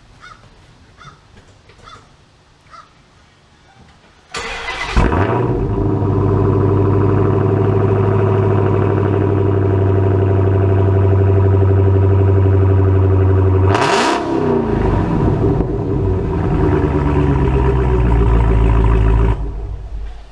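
Dodge Challenger SRT Hellcat's supercharged 6.2-litre V8, fitted with an aftermarket exhaust and intake, starts: it cranks, fires with a loud flare and settles into a steady idle. About fourteen seconds in a short blip of the throttle sets it off again briefly, the idle settles lower after it, and the engine is switched off near the end.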